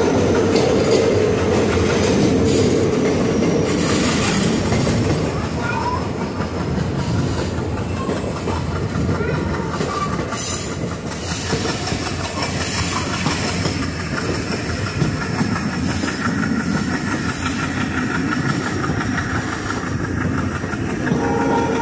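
Passenger train coaches of the Kollam–Chennai Egmore Express running along the rails, heard from on board: a steady running rumble, with the wheels clicking now and then over rail joints.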